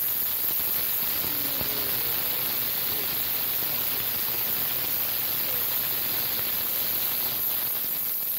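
Ultrasonic cleaner running with carburetor parts in its solvent bath: a steady hiss over a low hum.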